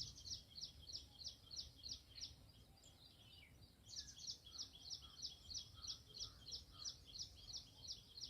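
A bird chirping faintly: a quick run of short, high notes, about three or four a second, that breaks off for a second or so in the middle and then starts again.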